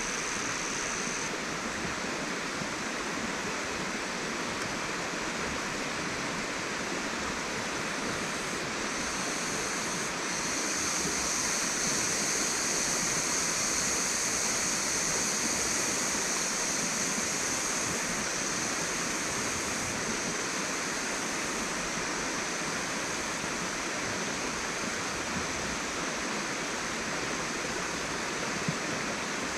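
River water rushing steadily. A steady high-pitched hum rides over it, growing louder about ten seconds in and easing a few seconds later.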